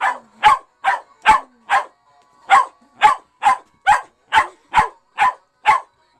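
West Highland white terrier barking repeatedly, short sharp barks at about two to three a second, with one brief break about two seconds in.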